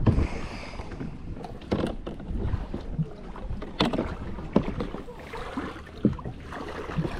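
Kayak paddling: paddle strokes splashing irregularly, with a few sharp knocks and a low rumble of wind on the microphone.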